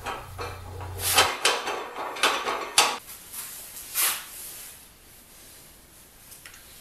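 Steel plate being set into a metal band saw vise and clamped: a run of metal knocks and clanks in the first three seconds, the sharpest near three seconds in, then a scrape about four seconds in. A low hum cuts out just over a second in.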